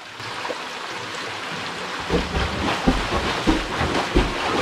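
Water rushing steadily in a rocky stream. From about two seconds in, irregular splashing and low thumps join it, from people moving through the water.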